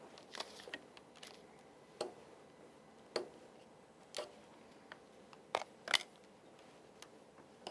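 Scattered light clicks and taps, about seven over several seconds, of a knife and a piece of dental wax being handled.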